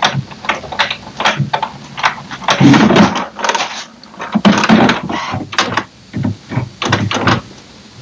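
HP Smart Tank 580/5100-series inkjet printer working through a level 2 printhead cleaning: its internal carriage and cleaning mechanism make a rapid, irregular series of clicks and clunks, with two longer noisy mechanical stretches near the middle.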